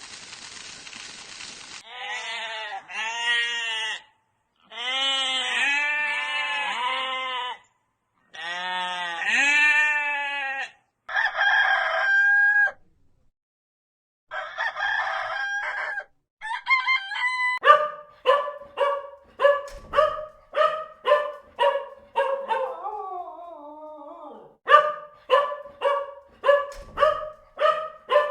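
A run of separate farm-animal calls, among them a rooster crowing and chickens clucking. It starts with about two seconds of hiss, then comes a string of short pitched calls with gaps between them. From about two-thirds of the way in, short calls repeat at roughly one a second.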